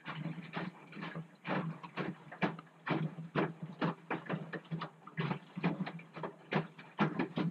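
Front-loading washing machine in its wash cycle: the drum turning and wet laundry tumbling, giving irregular slaps and sloshes several times a second over a steady motor hum.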